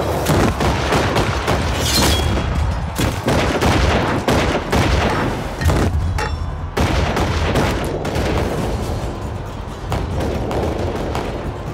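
Battle soundtrack of a film: scattered musket gunshots and impacts over a dramatic music score.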